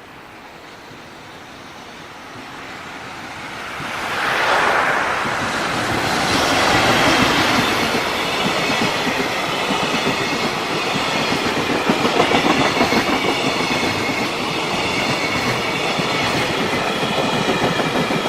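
A JR Freight freight train approaching, growing louder, its locomotive passing about four seconds in. The long string of freight wagons then runs by at speed, wheels clattering over the rail joints in a fast, steady rhythm.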